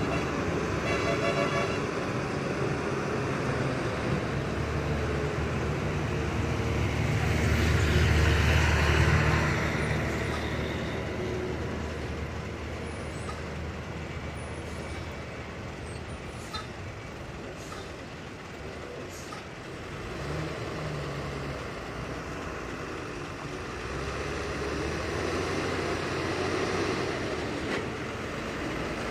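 Heavy diesel lorry's engine running under load as it climbs round a hairpin bend, getting louder for a few seconds, easing off, then building again near the end. A horn sounds briefly about a second in.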